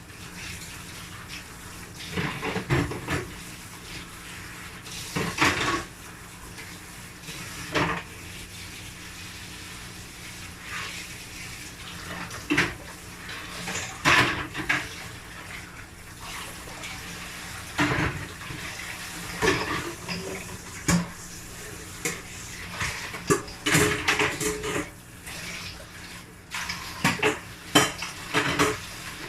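Dishes and cutlery clinking and clattering irregularly as they are hand-washed in a sink, over the steady rush of running tap water.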